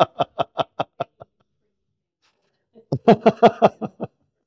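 A man laughing heartily in a run of 'ha-ha' pulses, about five a second, that fade out. A second burst of laughter comes about three seconds in.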